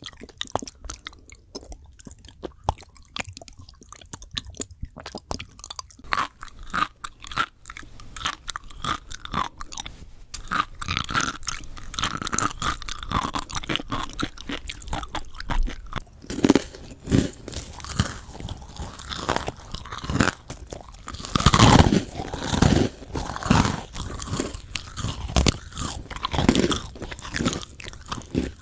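Close-miked eating: crisp crunching bites and chewing, a dense run of sharp crackles that grows louder about halfway through.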